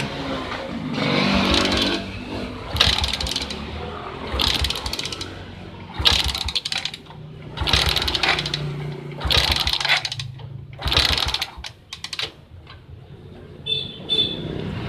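Suzuki Smash motorcycle's single-cylinder four-stroke engine cranked over by its electric starter in about eight short bursts of roughly a second each, during a spark test with the ignition coil's lead held against the cylinder head. The coil sparks, but irregularly and weakly, a sign of weak ignition on this bike with a dead battery.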